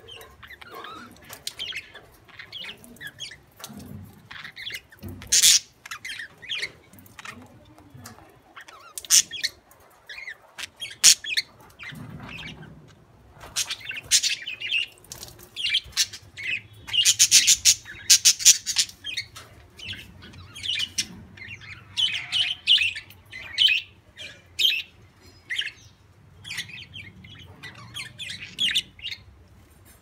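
Budgerigars chirping and squawking in many short, quick, irregular calls, thickest around the middle.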